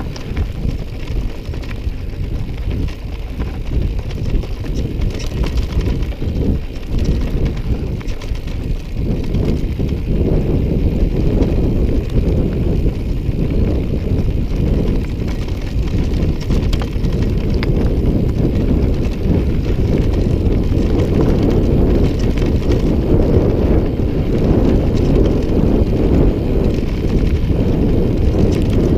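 Mountain bike descending a rough track: tyres rumbling over the ground and the bike rattling, with wind buffeting the microphone. The rumble grows louder from about ten seconds in.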